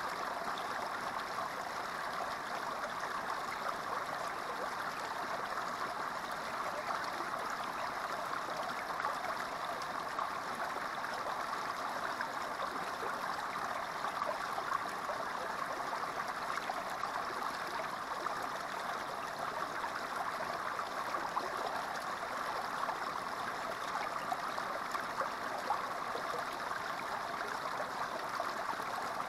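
Small creek running steadily, its water spilling down a short rocky chute into a shallow pool.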